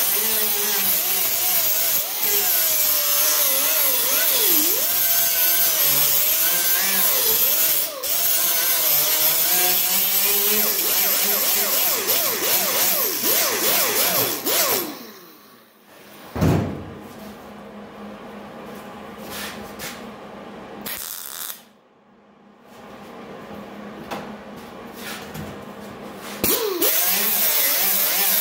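Angle grinder with an abrasive disc grinding tack welds flush on a steel car hood, around a welded-in hood-pin cup. It runs with a shrill hiss whose pitch wavers as the disc bears on the metal. It stops about halfway, gives a couple of short spurts, and starts grinding again near the end.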